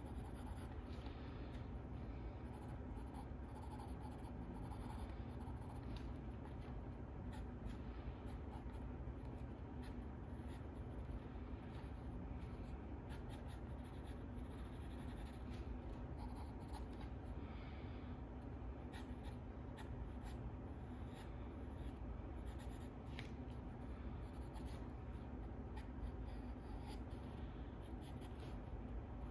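Drawing on sketchbook paper: quiet, irregular scratching strokes of a drawing tool across the page, over a low steady room hum.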